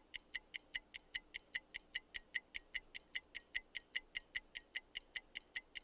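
Clock-style ticking of a quiz countdown timer sound effect: an even run of sharp ticks, about five a second.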